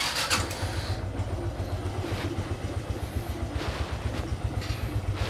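Motorcycle engine running at low revs, a steady low throb with fast uneven pulses, and a brief knock just after the start.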